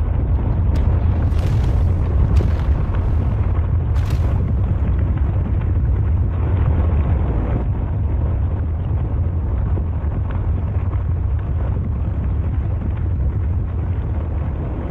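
Volcanic eruption: a continuous deep rumble with a few sharp cracks in the first four seconds, then a steady roar that eases slightly toward the end.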